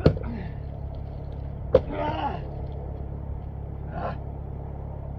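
Two heavy blows striking hard pond ice, about a second and a half apart, each followed by a short grunt or gasp, over a steady low rumble.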